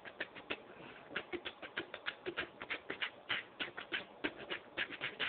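Maracas shaken in a quick, uneven rhythm, several rattling strokes a second, with a short break about a second in.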